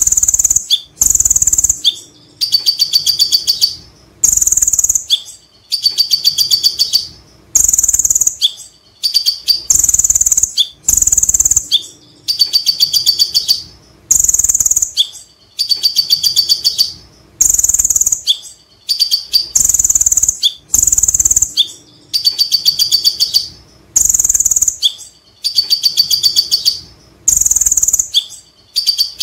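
Male kolibri ninja (Van Hasselt's sunbird) singing a loud, high chattering song. Short phrases repeat every second or two, and every few seconds one runs into a fast rattling trill.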